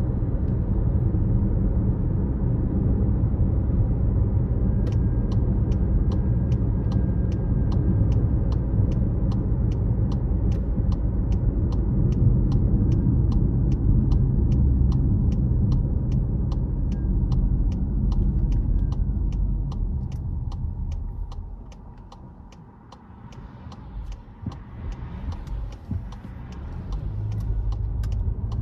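Car driving, a steady low road and engine rumble, with a regular ticking about twice a second starting about five seconds in. The rumble drops away for a few seconds near the end, then comes back.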